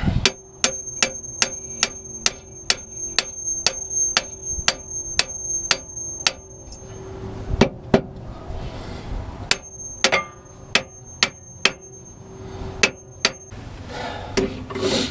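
Rapid hand-hammer blows on steel, about three a second, in two runs with a short pause between, each run ringing with a steady metallic tone. The hammer is striking the brake chamber linkage of an MCI MC9 bus's front brake to free a seized clevis pin.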